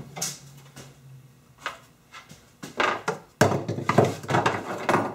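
Hard plastic door parts being handled and knocked against the frame while being lined up: a few separate knocks, then a loud run of knocking and rattling clatter from about three and a half seconds in.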